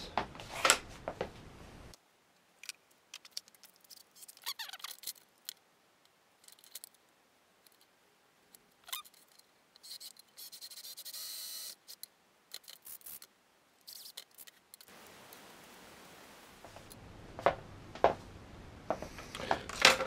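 Hand tools being handled on a wooden stool: scattered clicks and knocks, with a short stretch of scraping about ten seconds in.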